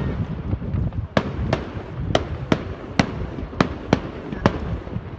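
Fireworks display: a run of sharp bangs, about two a second, starting about a second in, over a steady low rumble.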